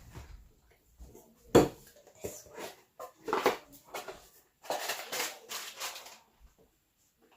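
Household items being handled: a sharp knock about a second and a half in, then several short clattering, rustling bursts over the next few seconds.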